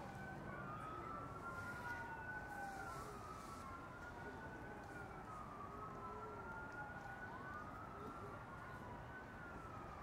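Faint emergency-vehicle siren wailing, its pitch sweeping slowly up and down about every two and a half seconds.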